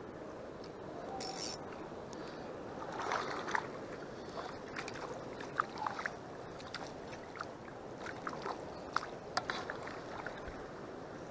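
Shallow sea water lapping and sloshing steadily, with scattered small splashes and ticks.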